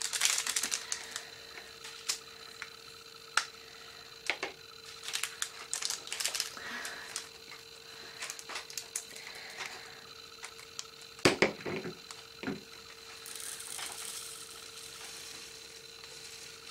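Small plastic storage pots and lids clicking and tapping, with the rattle and rustle of diamond-painting resin drills being handled. There is a sharp knock about eleven seconds in and a soft rustling hiss near the end.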